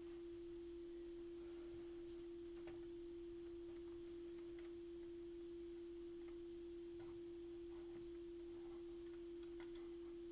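A steady pure tone at a single mid-low pitch, unchanging throughout, with a few faint light clicks.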